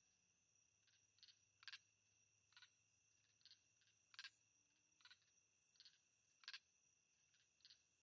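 Near silence, with a faint steady high whine and short high chirps at uneven intervals, roughly one or two a second.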